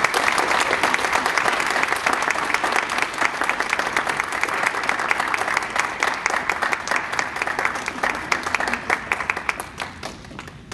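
A small audience clapping steadily, the claps thinning out to a few scattered ones and dying away near the end.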